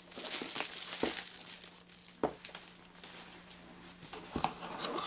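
Crinkling and tearing of plastic wrapping as a new board game box is opened, with a few sharp knocks of cardboard being handled.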